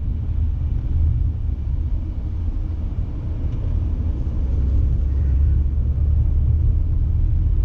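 Steady low rumble of a car driving, with no sudden events.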